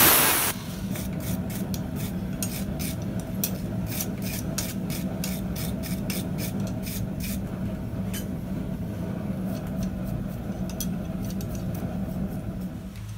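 An angle grinder on steel stops about half a second in. Then a hand hammer strikes the red-hot jaws of a blacksmith tong on a steel block in quick, sharp blows, about three a second, growing sparser after about eight seconds, over a steady low hum.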